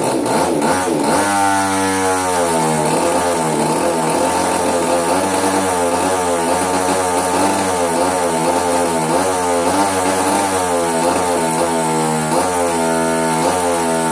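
HobbyKing RCGF 30cc twin-cylinder two-stroke model aircraft engine running unevenly, its speed wavering up and down again and again. It is misfiring because of a faulty ignition.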